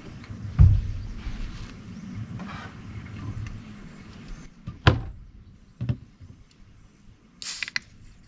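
The plastic lid of a BougeRV portable compressor fridge being worked open and shut. There is a heavy knock about half a second in, then two sharp clicks of the lid and latch around five and six seconds, and a short hiss near the end.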